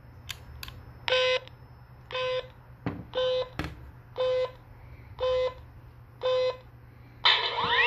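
Laser tag blaster's electronic game countdown from its built-in speaker: six beeps about a second apart, then a longer, louder tone with rising sweeps that signals the start of the game.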